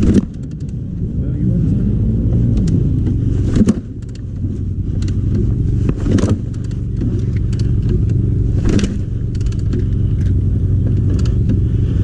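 2001 Yamaha YZ250 two-stroke being kicked over again and again without catching: a sharp knock about every two and a half seconds over a steady low rumble. The spark plug is fouled.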